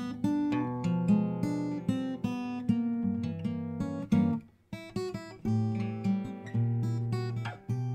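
Solo acoustic guitar playing an instrumental piece: plucked notes and chords ringing and decaying, with a short pause about halfway through before the playing resumes.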